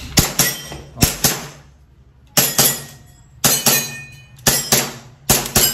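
Silver M92 Beretta-style gas blowback airsoft pistol firing about six shots. Each shot is a sharp crack followed closely by a second click, with a pause of about a second after the second shot.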